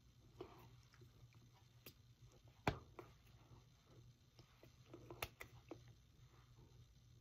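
Near silence over a low steady hum, broken by faint taps and clicks of hands meeting and sleeves brushing while signing. The sharpest click comes a little under three seconds in, and another comes about five seconds in.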